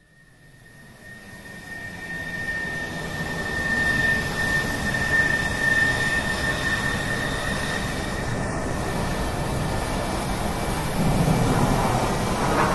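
Jet airliner engines and rushing air heard inside the cabin while the plane rolls down the runway: a loud steady rush with a thin high whine over it. The sound builds over the first few seconds, and the whine fades out about ten seconds in.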